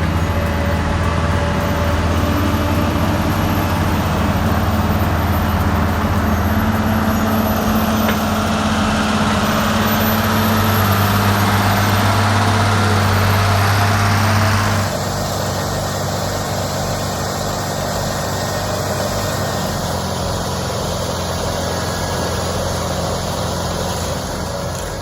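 Heavy machinery engine running steadily with a deep hum. About fifteen seconds in it cuts abruptly to a slightly quieter, duller engine sound.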